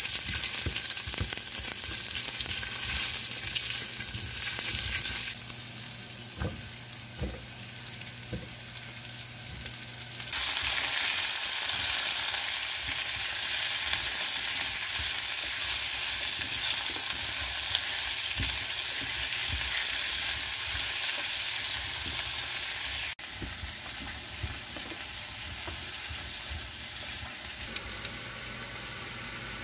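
Tteok (Korean rice cakes), then vegetables, sizzling in hot oil in a frying pan while a silicone spatula stirs them, with a few light knocks from the spatula against the pan. The sizzle gets louder and fuller about ten seconds in.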